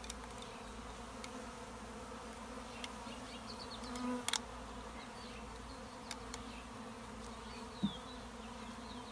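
Swarm of honey bees buzzing steadily in the air, with a few short clicks and taps, the loudest about four seconds in and near the end.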